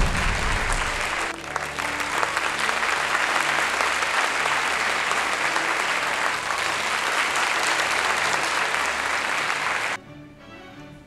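Audience applause, sustained and even, that cuts off suddenly near the end, leaving quieter music.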